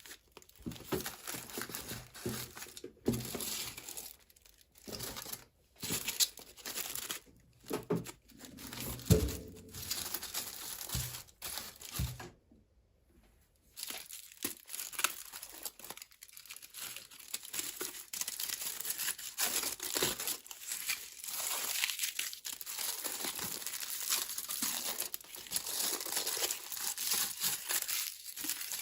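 Toy packaging crinkling and being torn open, in uneven stretches with short pauses and one brief silent gap about halfway through.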